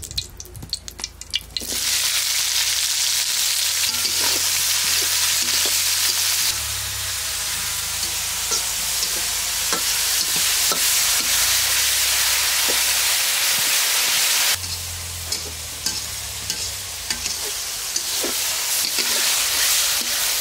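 Food frying in hot oil in a pan. The sizzle starts suddenly about two seconds in as the food meets the oil, runs on loudly, eases somewhat about two-thirds of the way through, then picks up again, with scattered clicks of stirring.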